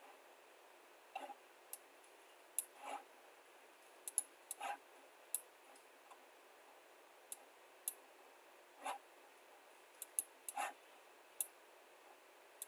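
Computer mouse clicking: a dozen or so short sharp single clicks at irregular intervals, with a few softer, duller sounds between them, over a faint steady hiss.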